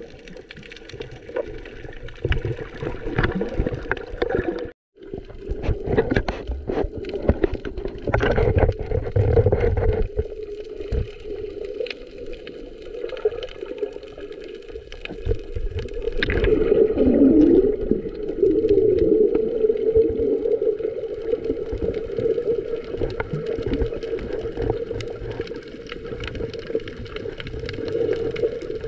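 Muffled underwater sound of a camera held below the surface: water sloshing and gurgling with irregular knocks and bubble noises. The sound cuts out briefly about five seconds in.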